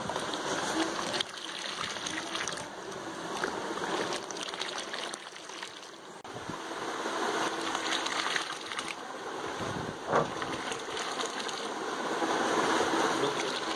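Milkshake being scooped with a steel cup and poured back into a large aluminium pot, the liquid splashing and trickling into the foam, with one louder splash about ten seconds in.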